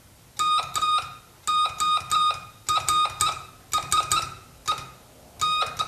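Morse code sent as a keyed beep tone: short and long beeps in quick groups of dots and dashes, with brief pauses between the groups, each beep starting with a faint click.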